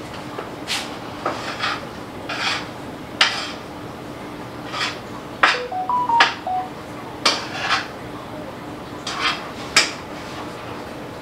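Dishes and cookware clattering and knocking as they are handled, in a dozen or so separate sharp clinks. About six seconds in comes a quick run of short electronic beeps at several different pitches.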